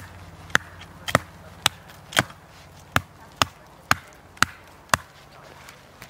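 An axe chopping into the base of a small living conifer trunk, about two sharp woody strikes a second; the strikes stop about five seconds in.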